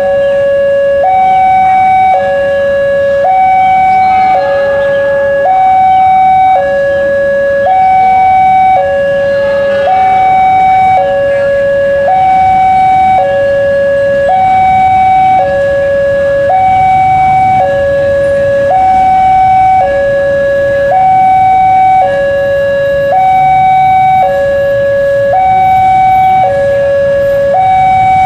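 Railway level-crossing warning alarm sounding a loud, repeating two-tone signal: a higher and a lower tone alternate, each held about a second. It signals that a train is approaching the crossing.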